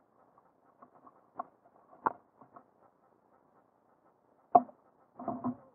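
Scattered light knocks and taps over a faint crackle. A sharper knock comes about two seconds in, the loudest knock near the end, and a quick cluster of knocks just after it.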